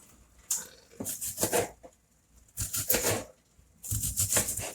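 Kitchen knife slicing through onion on a cutting board, in four short, crisp bursts with pauses between.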